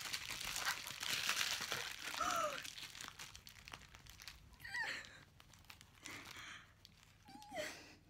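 Parcel packaging crinkling and tearing as it is ripped open by hand, busiest in the first three seconds and then in shorter rustles.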